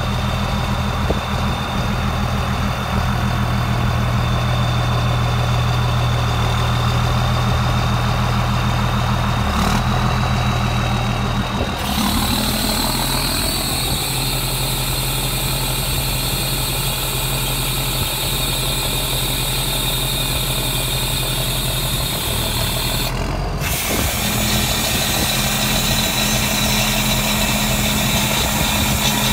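2000 Ford service truck's diesel engine idling steadily, its note shifting about twelve seconds in and again near 24 seconds.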